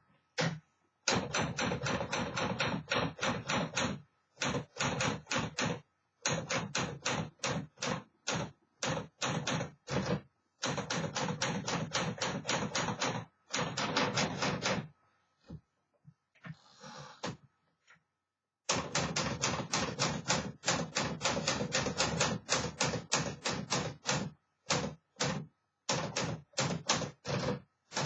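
1951 Smith Corona Silent typewriter being typed on: quick runs of keystrokes, several a second, broken by short pauses. About two-thirds of the way through there is a softer, longer scraping sound between the runs.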